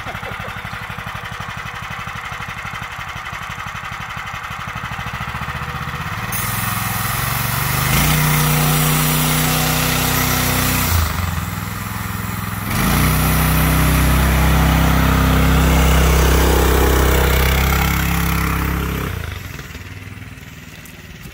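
A go-kart's 440cc single-cylinder engine idling, then opened up about six seconds in, so that its centrifugal clutch engages at full throttle and the kart pulls away. It runs hard at high revs, eases off briefly, revs up again, then fades as the kart drives off.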